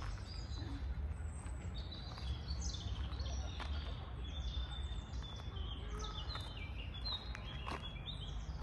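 Several small birds chirping and twittering, many short high calls overlapping throughout, over a steady low rumble of background noise.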